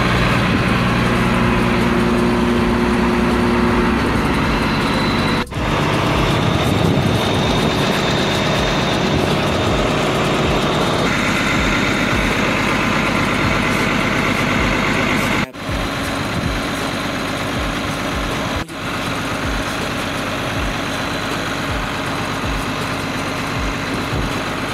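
Freshly overhauled Cummins 6CTAA8.3 turbocharged inline-six diesel running steadily on test, its pitch stepping slightly a few times. The sound breaks off briefly three times.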